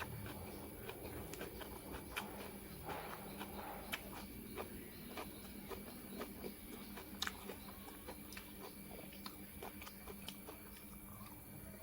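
A person chewing and crunching food, with many irregular sharp crunches, over a faint steady hum.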